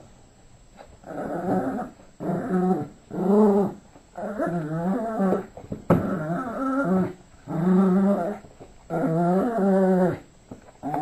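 Yorkshire terrier play-growling: about seven wavering growls, each half a second to a second and a half long, with short pauses between. There is one sharp click about six seconds in.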